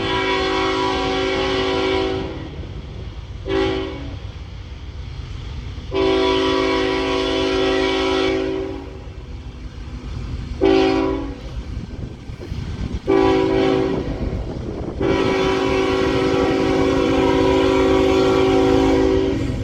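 Diesel locomotive's multi-chime air horn sounding six blasts: long, short, long, two short, and a final long one held about four seconds. A steady low rumble from the train runs beneath it.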